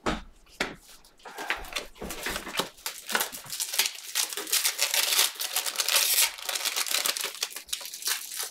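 Trading card pack wrappers crinkling and tearing as packs are ripped open by hand. The crackle is densest and loudest in the middle of the stretch.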